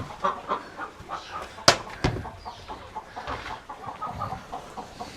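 Domestic poultry chattering in many short, repeated calls, with a sharp knock about a second and a half in and a softer one just after.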